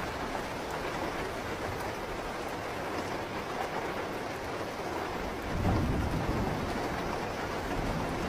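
Steady heavy rain falling, with a low rumble of thunder swelling up about two-thirds of the way through and fading over a second or so.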